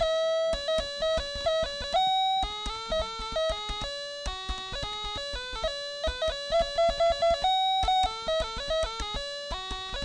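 Background music: a quick melody of plucked, guitar-like notes.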